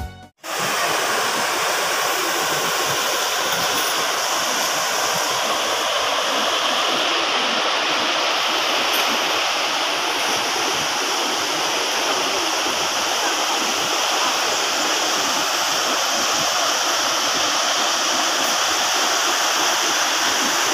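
Fast, shallow river rushing over rocks: a steady roar of running water.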